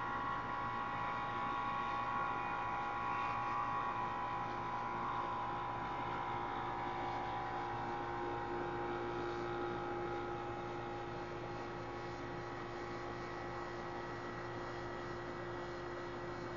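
York central air conditioner's outdoor condensing unit running after start-up: a steady hum of compressor and fan with several steady tones, one more joining about eight seconds in.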